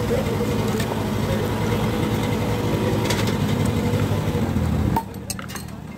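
Steady low rumble of an idling motor engine amid street traffic, with a few faint clicks. The rumble drops away abruptly about five seconds in.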